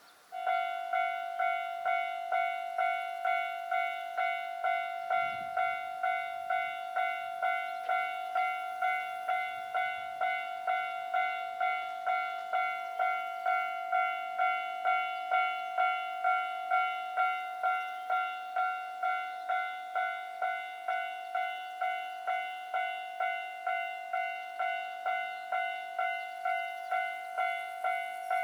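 Japanese railway level-crossing warning bell starting up and ringing in an even, steady strike about twice a second, signalling an approaching train.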